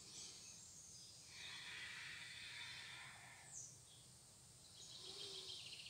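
Near silence: faint outdoor background with a soft breath about a second and a half in, and faint high bird chirps near the end.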